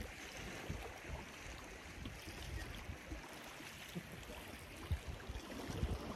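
Wind buffeting the phone's microphone in uneven gusts, over a steady wash of lake water on the rocky shore.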